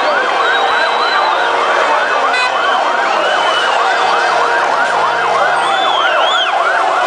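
Police 4x4 siren yelping in fast rising-and-falling sweeps, about three a second, over the din of a street crowd.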